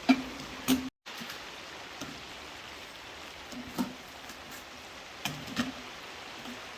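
Steady patter of rain on a greenhouse roof, with a few short knocks and bumps: two near the start, then more around four and five seconds in. The sound cuts out completely for a moment about a second in.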